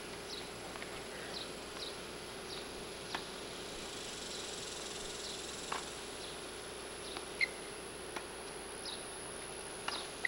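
Tennis ball being hit on a hard court during a warm-up rally, a sharp pock about five times at uneven intervals, the loudest about seven seconds in. Behind it, steady chirping and a constant high whine.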